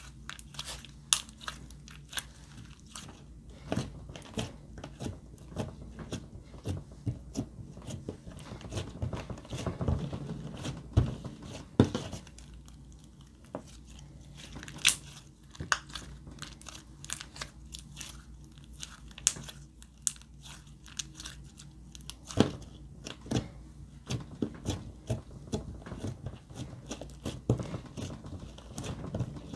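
Glossy grey-blue slime being squeezed, folded and pressed flat by hand on a wooden table, giving off a stream of irregular sticky clicks and pops as it squishes and pulls off the fingers.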